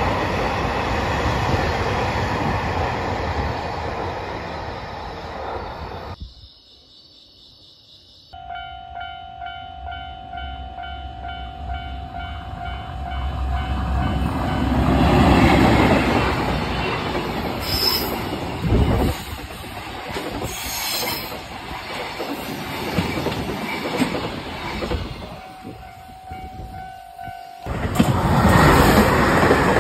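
A JR Freight container train rumbling past on the rails, then, after a short gap, a night scene: a train approaching with a steady ringing warning tone and a rising rail rumble, and a train running loudly past a station platform near the end.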